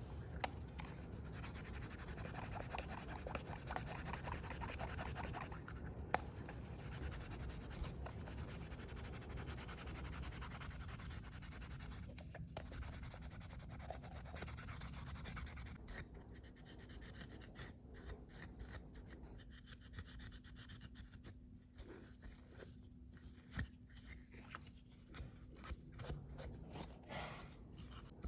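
Hand rubbing and scrubbing on the metal of a bronze censer, continuous at first and breaking into separate short strokes about halfway through.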